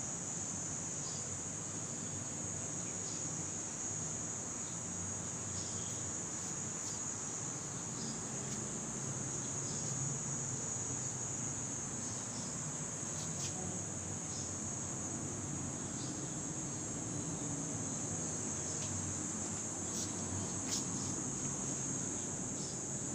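A steady, high-pitched chorus of insects trilling without a break, with a few faint clicks over it.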